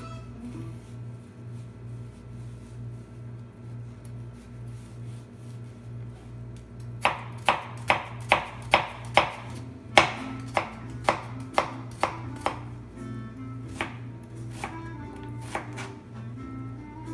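Kitchen knife chopping a red onion on a plastic cutting board: a run of about a dozen sharp knocks, about two a second, starting about seven seconds in, then a few lighter taps, over background music.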